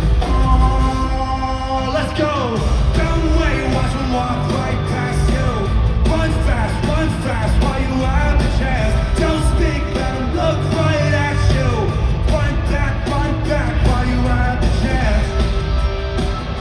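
Live rock song played loud through an arena sound system: band with heavy bass and drums, and a singing voice.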